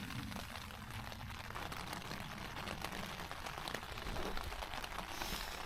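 Rain falling on a tent's fly sheet, heard from inside the tent: a steady hiss with a constant scatter of small, irregular taps.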